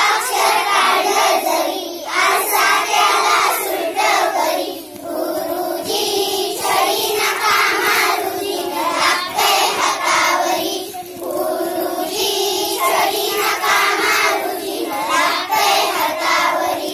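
A group of children singing a Marathi action song together in unison, in phrases with short breaks between them.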